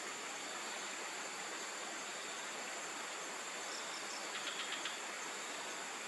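Steady hiss of rainforest background with a constant high insect drone. About four and a half seconds in, a brief run of about six quick high chirps.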